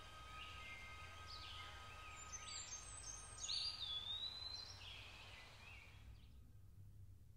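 Faint ambient background music: sustained tones with high gliding, swelling sounds, fading out about six seconds in.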